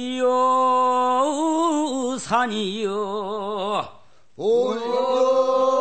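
A man singing a Korean funeral bier-bearers' song (sangyeo-sori) unaccompanied, in a chant-like folk style, holding long notes with a wide vibrato. He breaks off briefly for breath twice, about two seconds in and about four seconds in.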